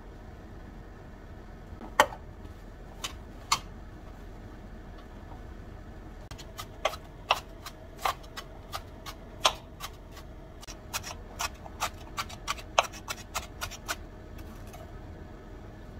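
Chef's knife mincing green onion on a cutting board: sharp, irregular knocks, a few at first, then a quick run of chops that stops shortly before the end.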